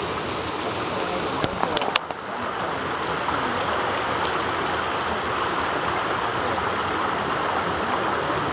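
Steady rush of stream water flowing under ice just above a waterfall. A few sharp clicks come just before two seconds in, after which the rush sounds duller.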